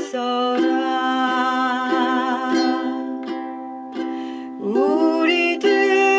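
Ukulele strummed in a steady three-beat rhythm, with a singing voice holding long notes over it.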